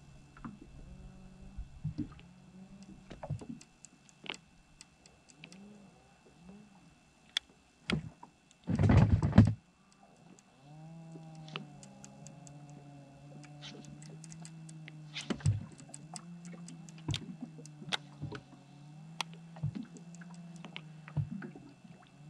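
Small boat's motor running at low speed, a steady low hum whose pitch wavers. Scattered light clicks throughout, and a loud rush of noise lasting about a second, about nine seconds in.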